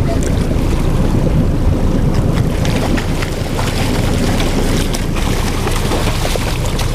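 Steady wind buffeting the microphone over the rush of sea water along the hull of a trolling boat. A few brief splashes come from a hooked ono (wahoo) thrashing at the surface alongside as it is brought to the boat.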